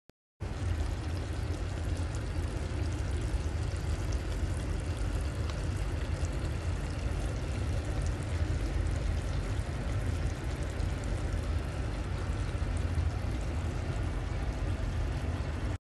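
Chicken achari curry bubbling as it cooks down in a pot on the stove: a steady noisy sound with fine crackles over a strong low rumble, starting abruptly about half a second in.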